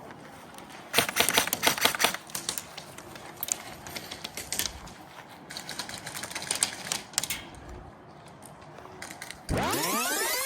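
Three bursts of rapid-fire airsoft gunfire, dense runs of quick clicks. Near the end a loud sweeping sound starts, its pitch rising and falling.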